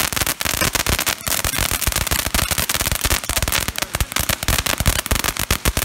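Cutting Edge 'Picture Perfect' firework fountain spraying sparks, with a dense, rapid crackle of many small pops over a hiss.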